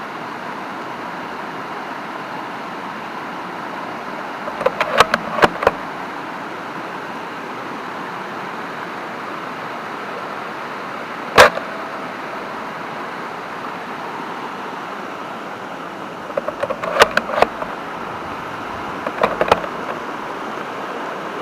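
An air gun fired once, a single sharp crack about halfway through, with short bursts of mechanical clicking before and after it, over a steady hiss.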